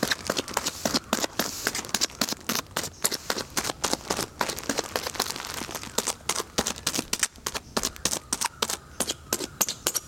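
Clear polythene bag packed with straw, crinkling and giving off sharp irregular clicks and pops as it is handled and pierced with a needle, several a second.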